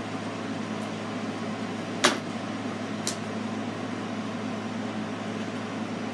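Steady low hum, like a machine or appliance running, with a sharp click about two seconds in and a lighter click a second later.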